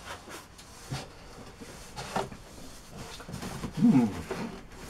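Cardboard box and plastic packaging handled: scattered scrapes, knocks and rustles as an air compressor is worked out of its box, with a louder, short pitched rubbing sound about four seconds in.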